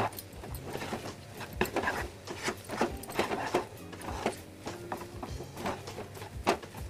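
Wooden spatula stirring and scraping a thick coconut barfi mixture around a kadhai: irregular soft scrapes and knocks against the pan.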